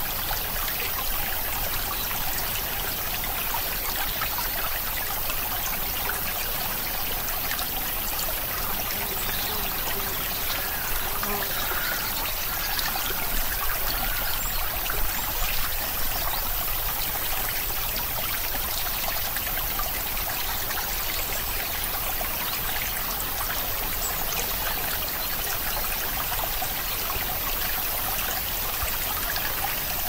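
Steady sound of flowing water, a trickling stream running without a break.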